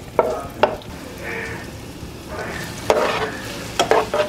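Homemade pasta being tossed with tongs in a frying pan of hot olive oil and garlic: the oil sizzles steadily, with a few sharp clicks of the tongs against the pan, most of them near the end.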